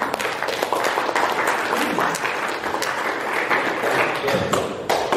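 Audience applauding, a dense patter of many hands clapping, with a few single claps standing out near the end.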